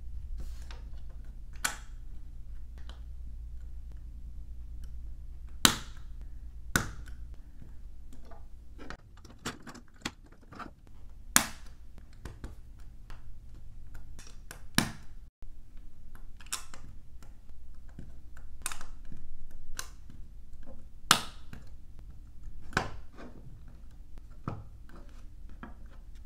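LEGO pieces clicking as they are pressed together and handled on a wooden tabletop. Sharp clicks come at an uneven pace, with about five louder snaps among them.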